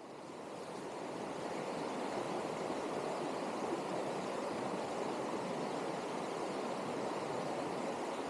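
Steady rushing of a mountain stream's flowing water, fading in over the first couple of seconds and then holding even.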